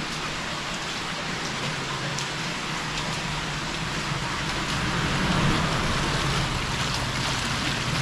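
Steady hiss of flowing creek water, with a low rumble that grows louder about five seconds in.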